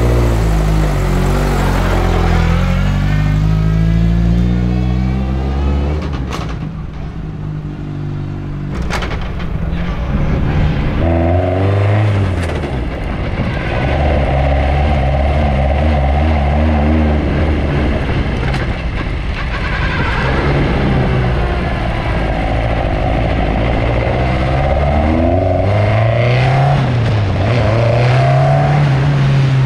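BAC Mono's four-cylinder engine driving off at low speed, its revs rising and falling several times as the car pulls away and moves across the tarmac.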